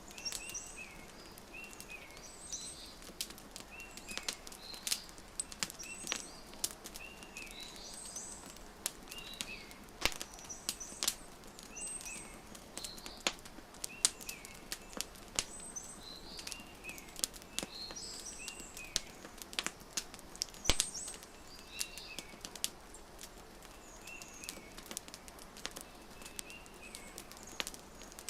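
Wood fire crackling with frequent sharp pops, over a soft steady hiss, while small birds chirp in short repeated phrases.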